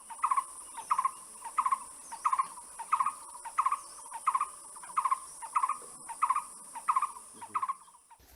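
A bird repeating one short call note over and over, about three notes every two seconds, some twelve times, over a steady high whine.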